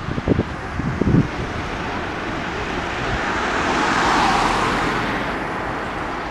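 Street traffic noise: a car passing by, swelling to a peak about four seconds in and then fading.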